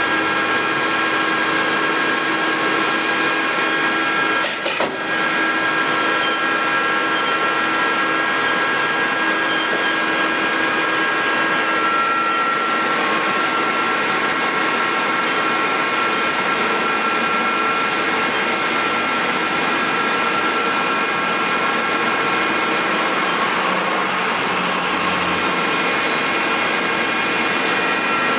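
Mori Seiki NL1500 SMC CNC lathe running: a steady mechanical hum with several high whining tones held throughout, and a brief click about five seconds in.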